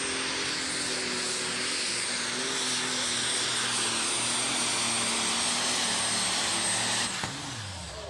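Super stock pulling tractor's turbocharged diesel engine running at full power as it drags the weight-transfer sled: a loud steady roar with a high whistle on top. About seven seconds in, the engine is cut and the roar stops abruptly, its pitch falling as it winds down at the end of the pull.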